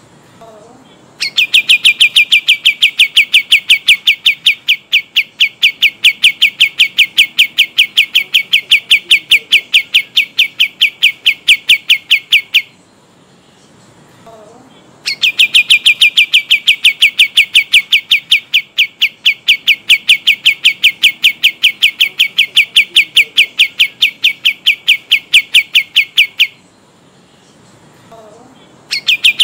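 Kapas tembak songbird singing its long rolling trill: a rapid, even string of high notes held for about eleven seconds, breaking off, then repeating just as long, with a third roll starting near the end.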